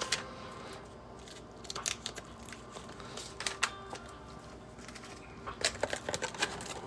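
Hands handling plastic card sleeves and card packs: scattered light clicks and taps with faint crinkling, busier near the end.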